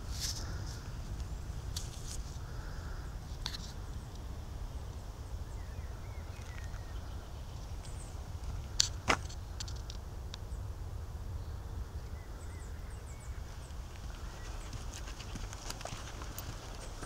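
Footsteps of someone walking over grass and a path, heard as scattered soft clicks over a steady low rumble, with two sharp clicks close together about nine seconds in.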